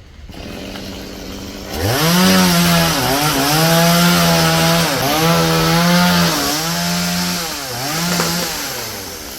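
Stihl two-stroke chainsaw revved to full throttle about two seconds in and cutting into wood, its engine note dipping briefly four times as the chain bogs under load, then sinking near the end as the throttle comes off.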